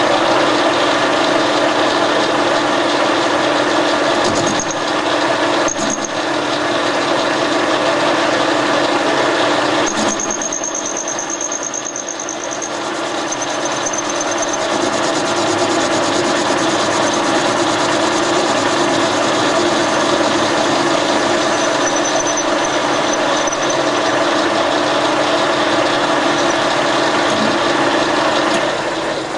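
Metal lathe running, its cutting tool facing the end of a hexagonal metal bar held in a three-jaw chuck. There is a steady machine hum, and a thin high squeal from the cut comes and goes, strongest about ten seconds in. The sound drops away at the very end as the lathe stops.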